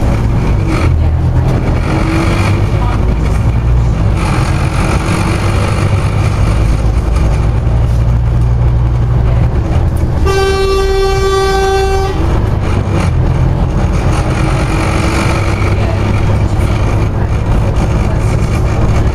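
Steady diesel engine and road noise inside a Scania OmniCity double-decker bus on the move. About halfway through, a vehicle horn sounds once, held for about two seconds.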